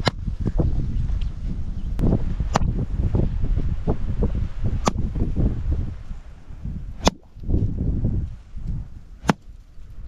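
Sharp whacks of a wooden stick beating harvested crop to thresh out the grain, about six strikes roughly two seconds apart, over a low rumble.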